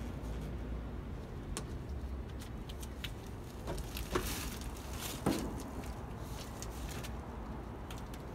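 Rubber window gasket being pressed and tucked into the rear-window opening of a 1974 Chevy C10 cab by gloved hands: scattered short rubbing and tapping noises, two of them clearer around the middle, over a steady low background rumble.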